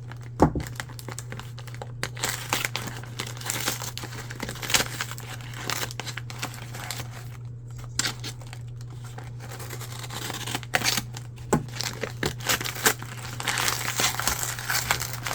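Mailing package being opened by hand: irregular crinkling and tearing of the packaging, with a few sharper snaps.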